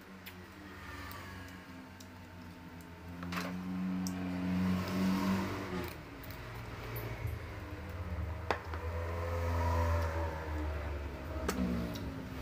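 A motor vehicle's engine running nearby, rising and falling in pitch as it grows louder and then fades, with a few sharp clicks over it.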